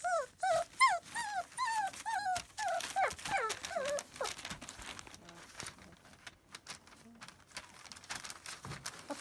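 A puppy whining in a quick run of about ten short, high, rising-and-falling whimpers over four seconds, then falling quiet apart from faint rustling. It is a tired puppy fussing and fighting sleep.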